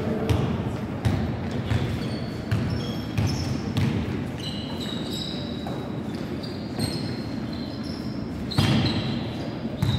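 A basketball bouncing on a gym floor as it is dribbled, a knock every second or so, with short high squeaks of sneakers on the court in between.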